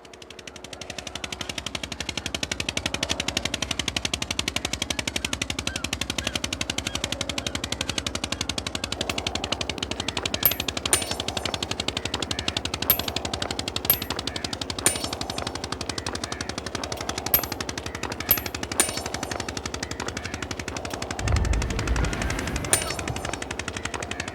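A fast, steady mechanical rattle of evenly spaced clicks, like a machine running, fading in over the first couple of seconds. Sharper single clicks stand out now and then in the second half, and a low rumble joins near the end.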